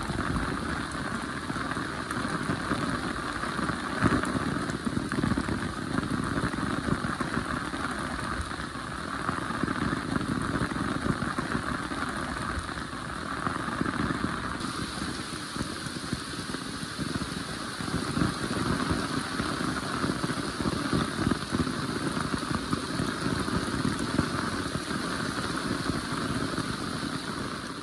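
Heavy rain falling steadily, a dense, even hiss of drops with no break.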